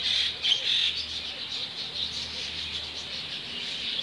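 Many small birds chirping at once, a dense overlapping twitter, busiest in the first second and then a steadier chatter.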